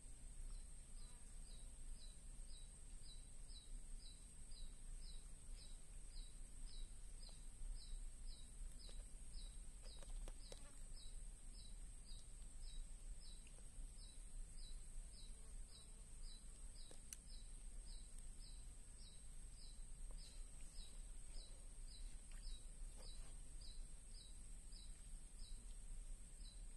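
Faint outdoor ambience: a short high chirp repeating evenly about twice a second over a steady high-pitched drone, with a low rumble underneath.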